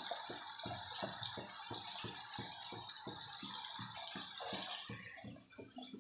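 Ground mustard-greens saag sizzling and spluttering in the hot oil and masala in a kadhai, over an even low pulsing about five times a second; the sizzle dies down about five seconds in.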